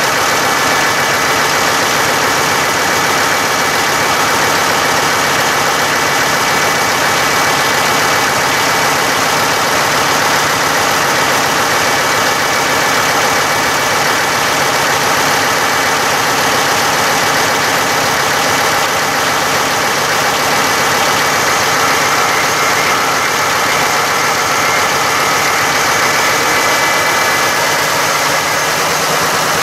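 Tractor engine running steadily, loud and unchanging throughout.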